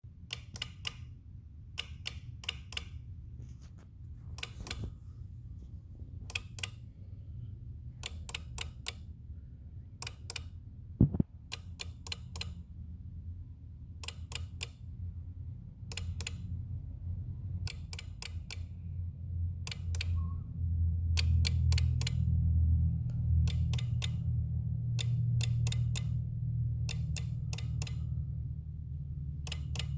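Clicking from the fuse box area of a 2018 Jeep Wrangler JL Rubicon, with a charger connected to the auxiliary battery: sharp clicks in quick clusters of two to four, repeating irregularly every second or two. A low hum underneath grows louder about two-thirds of the way through, and a single heavier thump comes near the middle.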